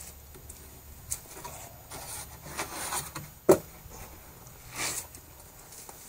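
Rustling and bumping as a fabric-wrapped plastic sump basin is handled and set into a hole, with scattered knocks and the sharpest knock about three and a half seconds in.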